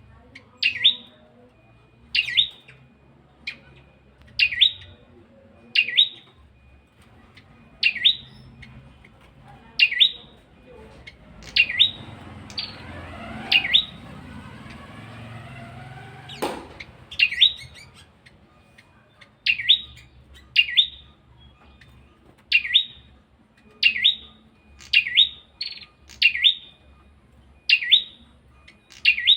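A single bird repeating a short, sharp call every one to two seconds. In the middle there is a spell of rushing background noise and one sharp knock.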